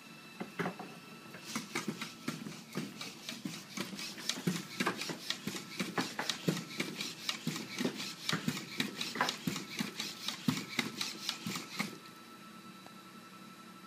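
DARwIn-OP humanoid robot walking, its feet and servo-driven legs making a fast, even patter of plastic-and-metal clicks on a hard surface, several a second. The clicks start a second or two in and stop near the end as the robot halts.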